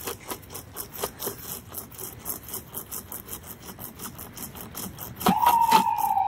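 Manual pocket chainsaw, a chain pulled back and forth by strap handles, cutting through a fallen tree branch in a steady run of quick rasping strokes. About five seconds in, a siren starts and holds.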